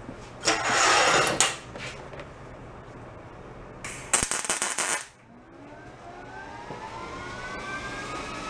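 MIG welder laying two short tack welds on thin sheet-steel gas-tank panels: two crackling buzzes of about a second each, the second about three seconds after the first. After them a fainter whine slowly rises in pitch.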